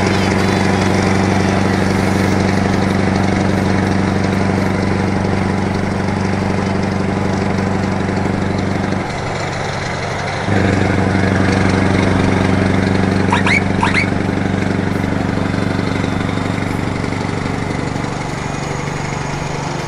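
Scania R500's V8 diesel engine running steadily as the truck drives along, over a haze of road and wind noise. The engine note drops away for a moment about nine seconds in, then comes back at the same pitch.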